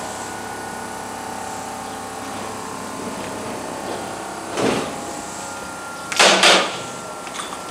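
Two short hisses of compressed air from a Kintetsu electric train at the platform, a lighter one a little past halfway and a louder, longer one about a second and a half later, over a steady hum.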